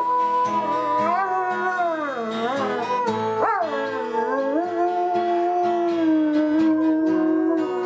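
A dog howling along to music: a wavering howl that slides up and down in pitch, then settles into one long held note in the second half, over music with a steady beat.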